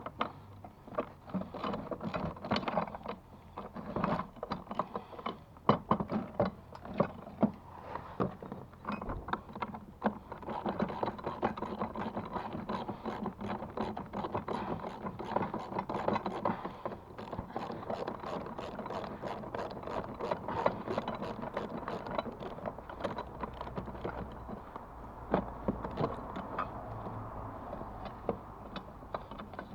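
Rapid mechanical clicking and rattling of a hand tool working on metal fittings. It is irregular and knocking at first, then settles into a fast, even ratcheting about ten seconds in.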